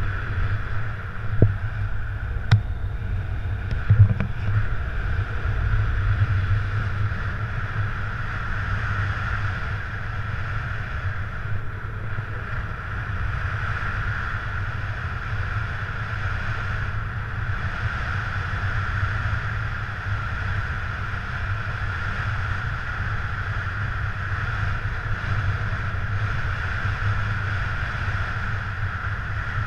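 Wind rushing over the camera microphone in unpowered paraglider flight: a steady low buffeting rumble with a steady hiss above it, and a few short knocks in the first few seconds.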